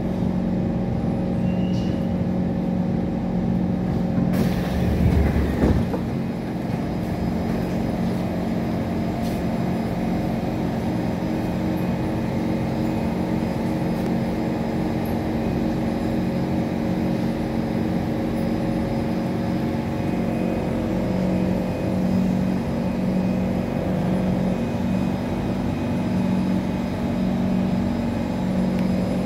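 Inside a C151 metro train coming to a halt: the running sound falls away with a quick downward glide and a burst of air hiss about five seconds in. After that the stopped train stands at the platform with a steady electrical hum from its on-board equipment.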